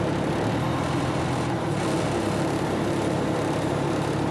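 Fire truck's engine running with a steady drone, heard inside the cab.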